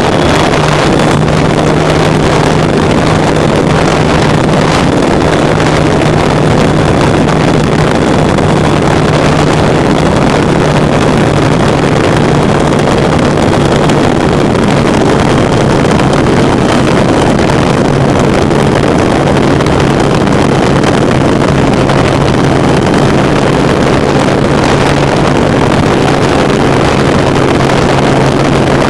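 Electric motor and propeller of a Multiplex Easy Glider II model glider running under power, heard from a camera mounted on the plane, with wind rushing over the microphone. A steady low hum with a faint high whine above it, its pitch drifting slightly lower as it goes.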